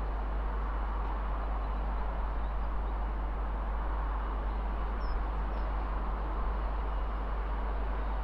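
Steady low rumble of a departing Class 66 diesel freight train and its cement tank wagons, heard from a distance. A faint bird chirp comes about five seconds in.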